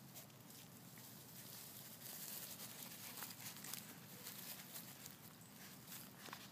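Faint rustling and light crackling of grass with irregular small clicks, as feet move through a lawn.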